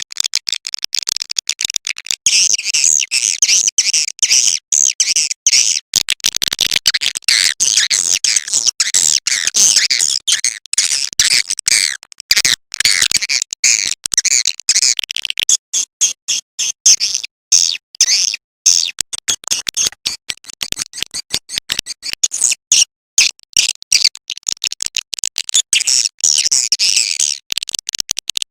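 Swiftlet calling-sound track: rapid, high-pitched chattering chirps of swiftlets, dense and continuous with brief breaks, the lure sound played at swiftlet nesting houses.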